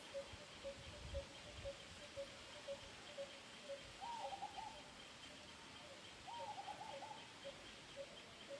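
Birds calling: one repeats a short single note about twice a second, steadily, while twice a short run of quick, slightly higher notes breaks in. Faint low thumps come about a second in.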